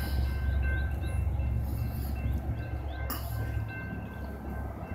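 Low, steady rumble of an approaching diesel freight locomotive and its train.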